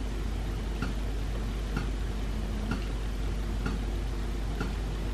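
Steady, even ticking, about one tick a second, over a low constant electrical hum.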